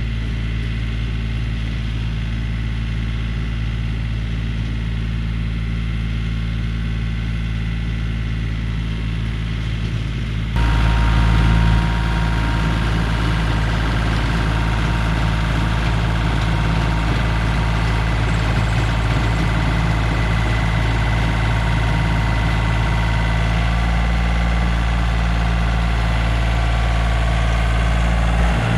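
Yanmar compact diesel tractor running steadily while driving a PTO rototiller through garden soil, the engine and tiller noise stepping up sharply about ten seconds in and staying louder.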